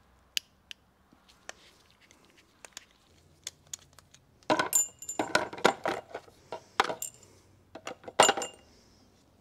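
Small metal carburetor parts and tools clicking and clinking on a workbench as a small-engine carburetor is taken apart. Scattered light clicks at first, then a louder run of clinks and rattles about halfway through, and another short burst near the end.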